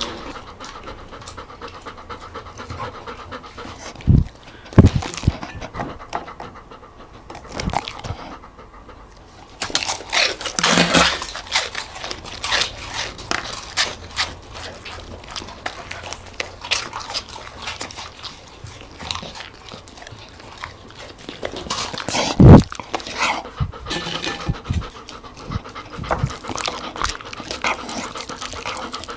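A dog eating and panting, with a steady run of small clicks throughout. There are a few loud thumps about four and five seconds in, the loudest about twenty-two seconds in.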